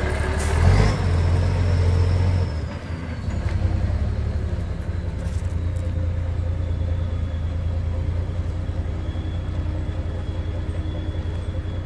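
Mitsubishi Fuso truck's diesel engine working hard under load with a high turbo whistle as the truck pulls free, a sharp knock about a second in. The engine eases off after two or three seconds and runs steady as the truck drives away.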